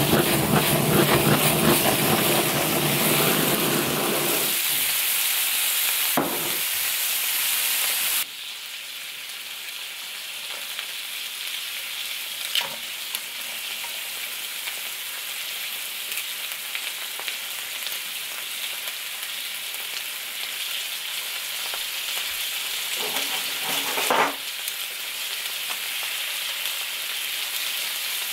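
Cheese-and-butter-topped scallops in their shells sizzling on a hot griddle: a steady frying hiss. For about the first eight seconds a louder, fuller sound lies over it and cuts off suddenly. Later come two sharp clicks of metal tongs against the shells.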